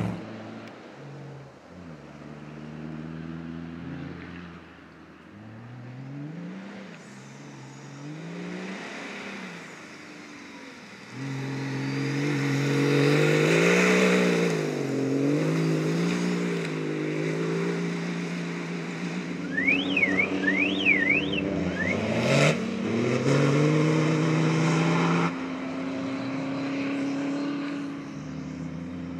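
Off-road rally car engines revving hard and dropping back again and again as they change gear through the stage, fainter at first and louder from about a third of the way in. A sharp crack about two-thirds through.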